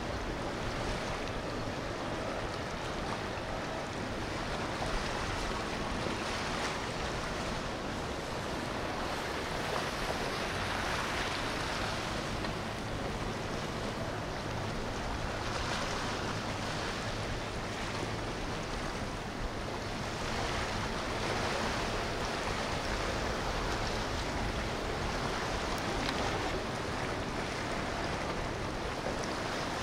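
Boat engines and rushing water on a river, heard as a steady wash of noise over a low hum. The noise swells a few times as boats pass.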